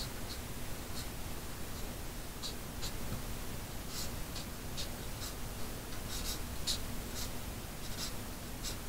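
Gray marker drawn over paper in short, quick strokes: a dozen or so soft scratches at irregular intervals as lines are sketched in.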